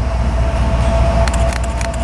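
Approaching freight train's diesel locomotives running with a steady low rumble and a steady engine tone. A few sharp clicks come near the end.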